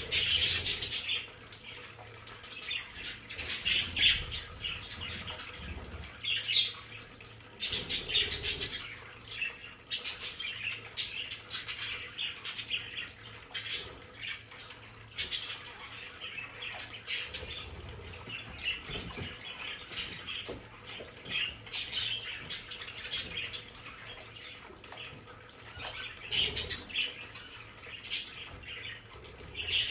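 A flock of budgerigars chattering: many short chirps and squawks overlapping with no pause, some louder calls standing out now and then.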